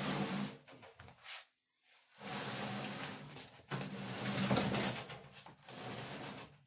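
A roughly 500-pound pedestal wood stove being shoved and dragged across a plywood subfloor, its base scraping and groaning against the wood. There is a short scrape at the start, a pause, then a long scrape from about two seconds in until just before the end.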